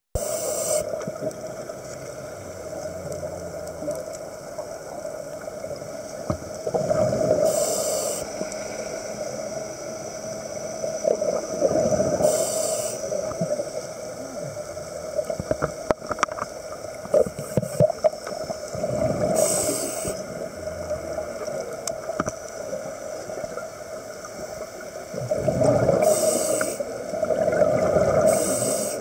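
A scuba diver breathing through a regulator, heard underwater: a short hiss of each inhalation and a gurgling rush of exhaled bubbles, repeating about every five to seven seconds over a steady underwater murmur.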